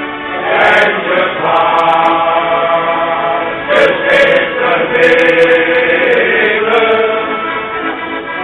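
Men's shanty choir singing together, with long held notes in the middle of the phrase.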